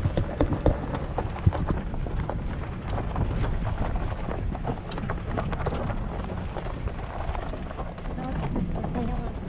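Wind buffeting the microphone in a steady low rumble, with scattered small clicks and knocks.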